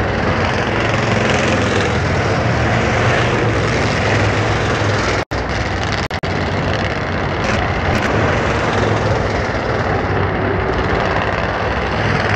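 Engines of several stock cars racing on a short oval track, a loud steady drone. The sound cuts out abruptly for an instant about five seconds in and again about a second later.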